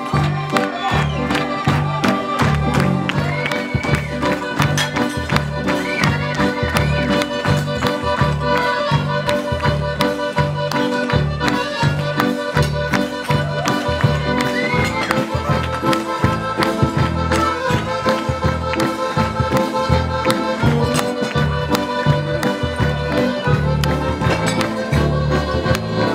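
Lively traditional dance music: a sustained accordion-like melody over a steady bass beat, played loud for dancing.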